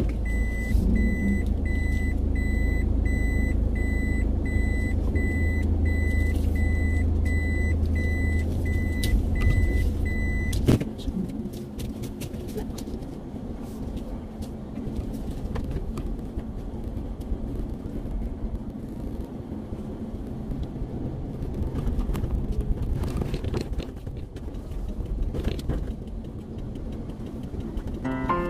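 Inside a car, the engine and cabin rumble with an electronic warning beeper sounding evenly, about one and a half high beeps a second. About ten seconds in, the beeping and the heavier rumble stop abruptly. After that there is quieter road noise with a few light clicks.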